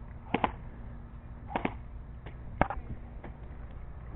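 Airsoft guns firing during a game: sharp snapping pops, mostly in quick pairs. One pair comes near the start and another about a second and a half in, then the loudest single pop about two and a half seconds in, followed by a faint one.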